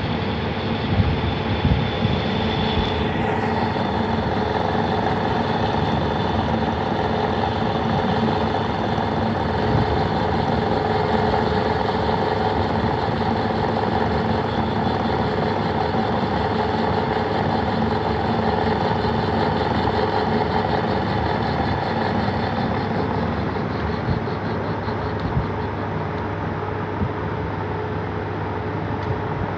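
Lathe running steadily with a constant motor and gear hum during taper turning, the cut fed by hand through the compound slide set at 5 degrees. A few light knocks come in the first couple of seconds.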